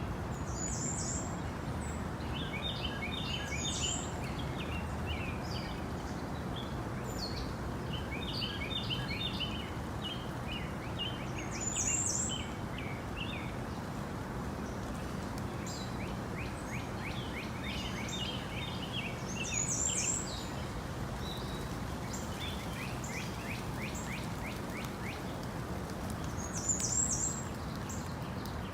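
Rainforest birds calling over a steady low hush: a bright high chirp about every eight seconds, with runs of quick repeated notes in between.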